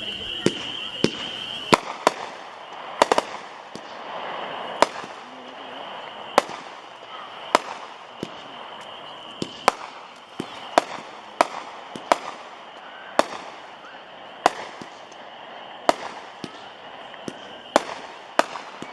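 A 25-shot, 200-gram consumer repeater cake (Cutting Edge's 'Wicked and Wild') firing its shots in sequence: a string of sharp bangs, roughly one a second, some coming in quick clusters.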